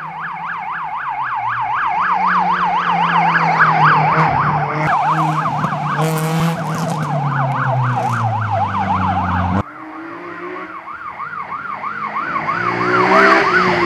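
Rapid warbling siren of a rally course safety car, rising and falling several times a second over the car's engine, whose note drops as it drives past. The sound breaks off suddenly about nine and a half seconds in, then the siren comes back with a slower warble, growing louder as it approaches.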